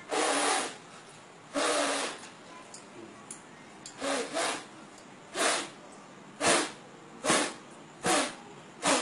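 Sharp samurai-style sword blade sawn back and forth across bare, oiled skin, about nine rasping scrapes. The first two strokes are longer; the rest come shorter at about one a second. The blade is not cutting the skin.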